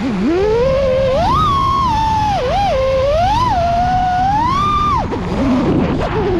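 FPV quadcopter's brushless motors whining, the pitch rising and falling with the throttle and dropping sharply about five seconds in, over rushing wind on the onboard camera's microphone.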